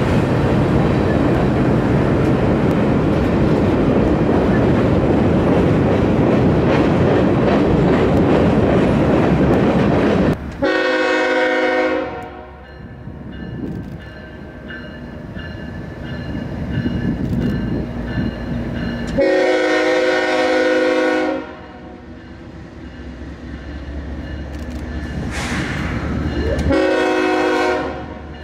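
Freight train rolling past with a steady rumble and rattle of cars on the rails. About ten seconds in it gives way to a diesel freight locomotive sounding its multi-note air horn in three long blasts several seconds apart, with the engine running low between them.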